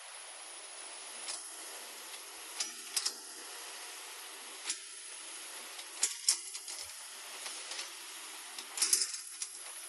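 Hyundai 150 excavator working: a steady hiss of machine noise broken by sharp metallic clanks and knocks, a pair about six seconds in and the loudest cluster near the end.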